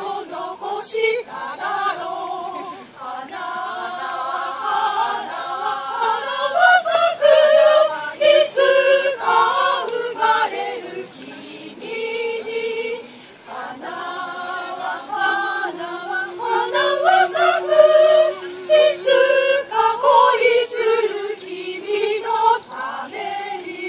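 Choir of mostly women's voices singing a cappella, phrases of held notes broken by short pauses for breath.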